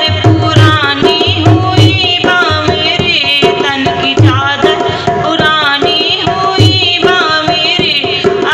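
Hindi devotional bhajan music: hand drums keep a steady beat under a wavering, gliding melody line.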